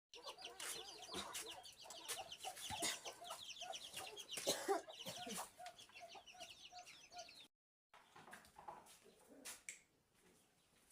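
Chickens clucking: a string of short, evenly repeated low notes with many quick high chirps over them and a few sharp clicks, cutting out briefly about three-quarters of the way through.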